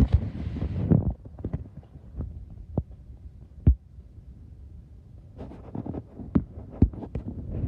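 A string of irregular low thumps and knocks, about eight over several seconds, with wind buffeting the microphone at the start and again near the end.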